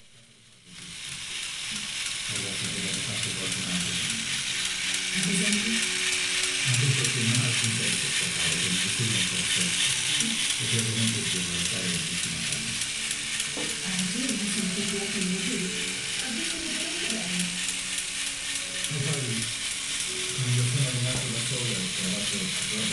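Battery-operated tin toy farm truck running: a steady high whir from its small electric motor and gears, with an uneven lower chatter from the mechanism.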